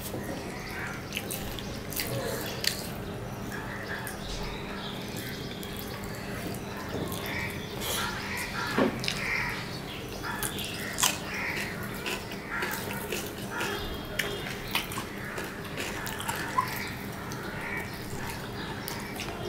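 Close-up eating sounds of two people eating rice and curry by hand: wet chewing and lip smacking with scattered short clicks, over a steady low hum.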